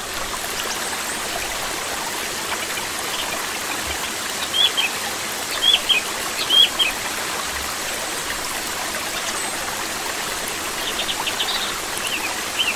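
Steady rush of running water with short, high bird chirps, in clusters about four to seven seconds in and again near the end.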